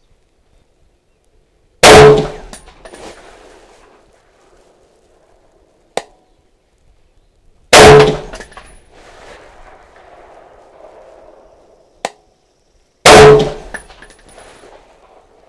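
Three rifle shots from a Daniel Defense DD5V2 semi-automatic .308, firing Federal Premium 168 grain Sierra MatchKing match ammunition: very loud cracks about five to six seconds apart, each ringing out over a second or so. A short sharp click sounds a second or two before the second and third shots.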